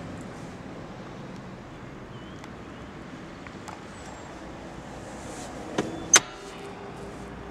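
Two sharp clicks inside a car's cabin about six seconds in, the second louder and followed by a brief metallic rattle, over a low steady background hum.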